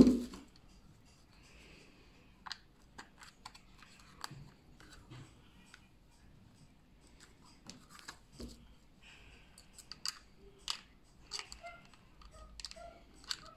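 A sharp knock right at the start, then scattered light clicks and rustles as the plastic digital alarm clock, its USB cable and its folding chrome metal stand are handled.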